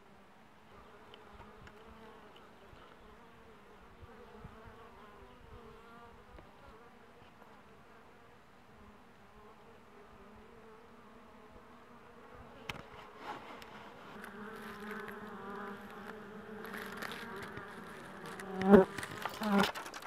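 Honeybees buzzing at their hive entrance: a steady low hum that grows louder in the second half, with two brief loud swells near the end.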